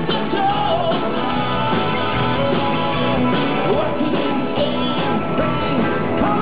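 Rock band playing live: electric guitars with a singer's voice over them.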